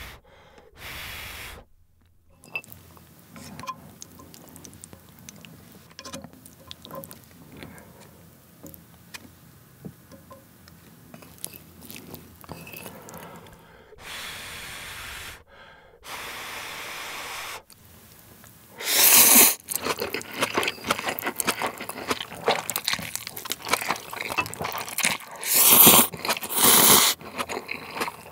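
Close-miked chewing of ramen noodles with crisp shredded green onion, then two long slurps just past the middle, and loud slurping and chewing of noodles in the last third.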